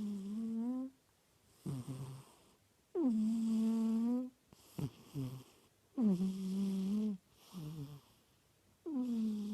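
Sleeping tomcat snoring loudly in a steady breathing rhythm, about every three seconds. Each breath brings a long pitched snore that slides down and then holds, with a shorter, lower snore in between.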